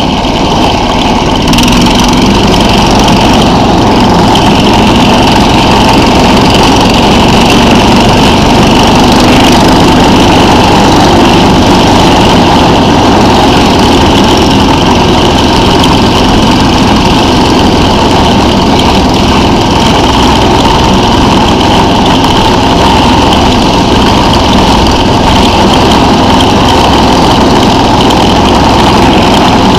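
SnowDog tracked snow machine's small engine running steadily while the machine travels along a snow-packed road. The engine gets slightly louder about a second and a half in, then holds an even note.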